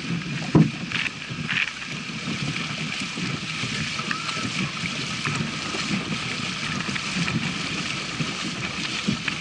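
Legs splashing through knee-deep floodwater in steady wading strides while a towed plastic kayak sloshes through the water behind. There is one sharp knock about half a second in.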